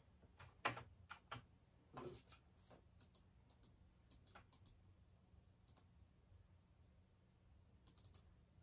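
Faint, scattered clicks and taps from a computer mouse and keyboard, several in the first two seconds, then only a few, spaced well apart.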